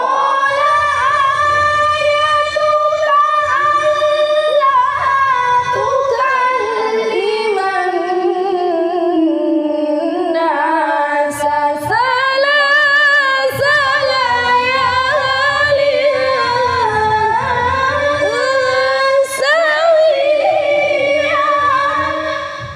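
Quran recitation (tilawah) in a high, melodic voice with no accompaniment: long drawn-out ornamented phrases with wavering pitch, and a brief breath break about halfway through.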